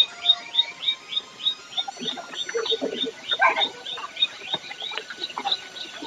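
A small animal's rapid, regular chirping call: short high chirps, each dropping slightly in pitch, about three a second, with fainter scattered sounds underneath.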